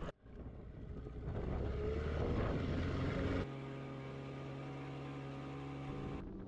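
Boat motor running steadily, its note changing to a smoother, steady hum about halfway through.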